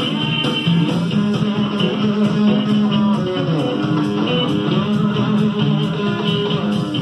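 Recorded guitar music with a stand-up bass, played back through hi-fi stereo speakers.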